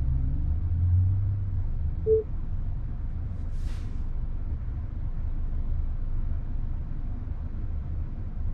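Low, steady road rumble heard inside the cabin of a 2024 Tesla Model Y Performance rolling slowly, with no engine note from the electric drive. One short beep sounds about two seconds in, and a brief hiss near four seconds.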